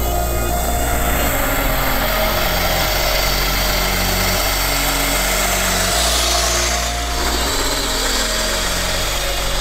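Steady electric whir of a scale RC truck's motor and geared drivetrain while it pulls a loaded trailer.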